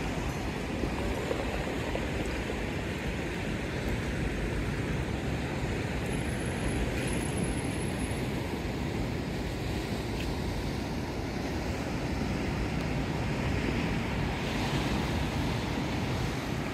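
Steady rush of ocean surf breaking and washing over a rocky shore, with wind blowing across the microphone.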